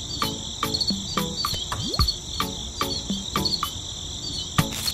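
Crickets chirping in a steady high trill, with short low calls and sharp clicks repeating every half second or so.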